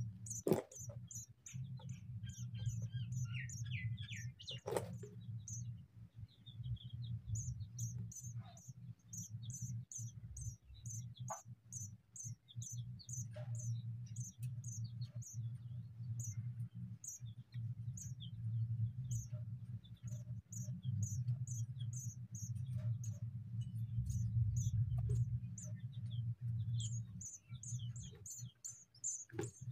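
Sparrow nestlings cheeping to beg: a long run of short, very high cheeps, about three a second with brief pauses, over a steady low hum. A few soft rustles come near the start.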